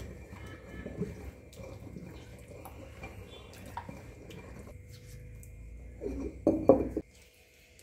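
Soaked rice and grated coconut being ground by hand in a traditional stone grinder (aattukallu): the stone pestle turning and scraping through wet batter in the stone mortar. A few louder knocks of stone come about six seconds in, and the sound drops away sharply about seven seconds in.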